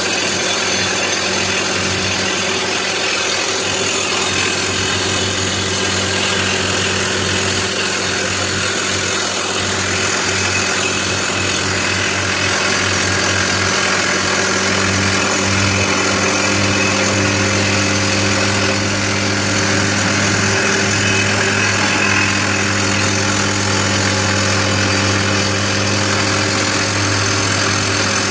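Soosan hydraulic rock drill running, a continuous steady mechanical hammering noise with a low engine hum underneath.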